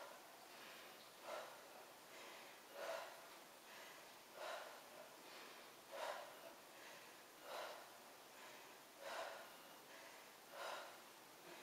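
Faint, short breaths out by a woman, about one every second and a half, in time with each vertical-leg crunch.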